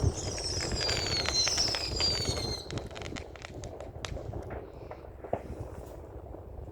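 Fireworks: a whistling firework gives a high whistle that falls steadily in pitch for about two and a half seconds, mixed with sharp cracks, followed by a run of rapid crackling pops.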